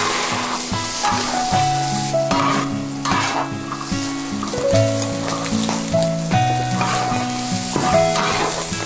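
Hot oil sizzling in a large wok as food is stirred and tossed with a spatula, over background music with a slow melody.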